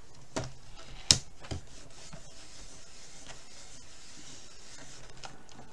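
Clear acrylic lid of a stamping platform swung shut onto its base: three plastic clacks in the first second and a half, the loudest about a second in. Then a hand rubs and presses on the closed lid.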